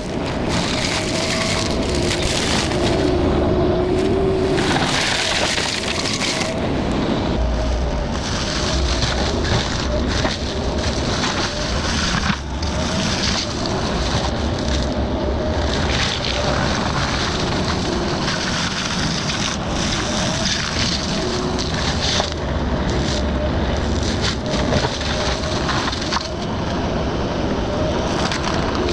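Excavator engine running under load while its forestry mulcher head grinds up brush and wood: a loud, continuous churning noise over a steady engine tone.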